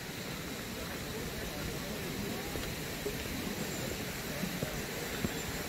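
Footsteps on a stony dirt trail: irregular light crunches and knocks over a steady hiss from the hand-held phone recording while walking.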